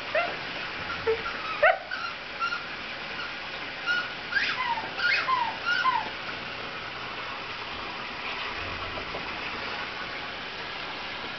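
Cats giving short mews and chirps while play-fighting: a run of brief calls, some sliding down in pitch, in the first six seconds, over a steady hiss.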